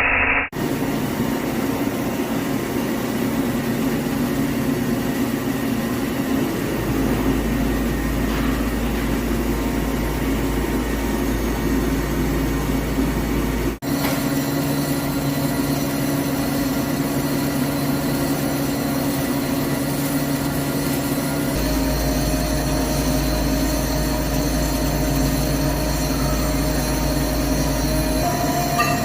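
CNC lathe running, a steady machine hum with several held tones. A deep low hum comes in about 7 s in and again about 22 s in, each time for several seconds. The sound breaks off abruptly twice, near the start and about 14 s in.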